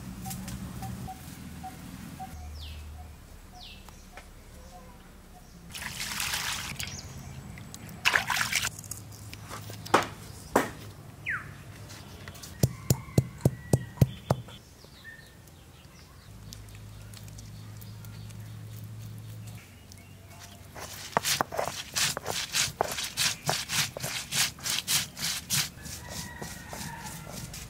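Hand-held grinding stone knocking on a flat stone slab as it crushes turmeric and whole spices: a short even run of sharp knocks about halfway in, then a longer run of quick knocks, about three or four a second, near the end.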